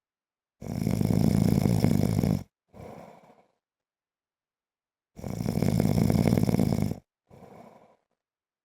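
A man snoring in his sleep: two loud snores, each about two seconds long and each followed by a quieter, shorter breath sound, repeating about every four and a half seconds.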